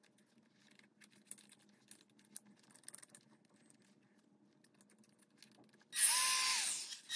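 Faint clicks and taps as a small handheld rotary tool is handled and fitted. Near the end its motor is switched on: it spins up to a steady high whine, runs for under a second, and winds down.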